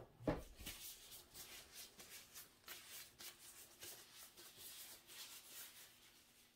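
Faint, irregular light rustling and small ticks against quiet room tone.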